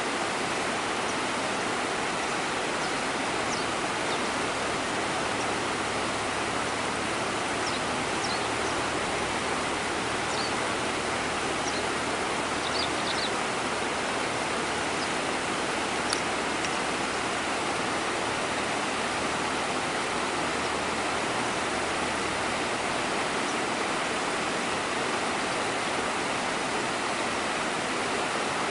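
Steady rushing of river water flowing over and around rocks, with a few faint, short high chirps in the first half.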